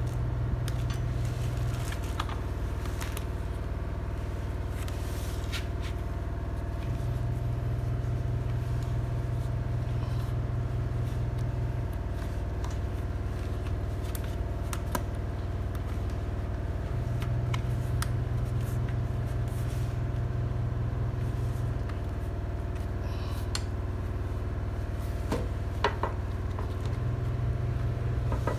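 A steady low hum, with a few faint clicks and scrapes as plastic clips are worked onto a grass catcher bag's metal frame.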